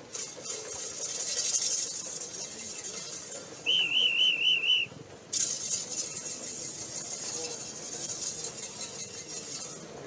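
A whistle blown in a warbling trill for about a second midway, over a high hissing, rattling noise that breaks off briefly just after the whistle and then resumes.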